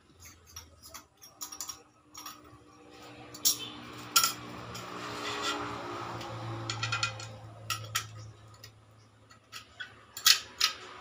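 Small metal handle parts and screws clicking and clinking as they are handled and fitted to a food warmer's glass lid, with a few louder clicks, amid rustling packaging.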